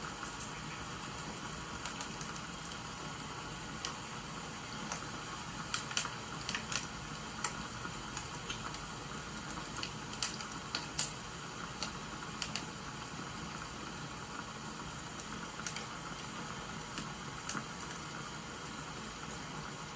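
A wood fire crackling with rain falling: a steady hiss with irregular sharp crackles, thickest around a third of the way in and again just past the middle.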